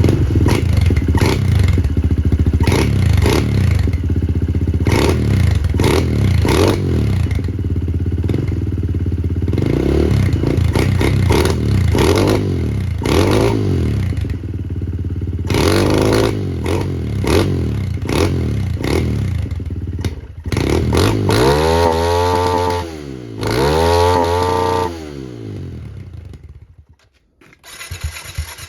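Kawasaki KLX110 single-cylinder four-stroke engine run through its exhaust and blipped over and over, the revs rising and falling about once a second. Later come two longer revs that climb and fall, and near the end the sound drops almost to nothing before the engine is heard again.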